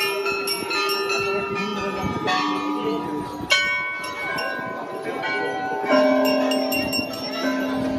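Hanging brass temple bells being rung over and over, several bells of different pitches struck one after another and ringing on over each other, with the sharpest strikes about three and a half and six seconds in.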